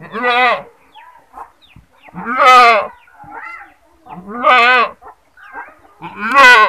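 A goat bleating loudly four times, about two seconds apart, each call a wavering, trembling bleat lasting under a second.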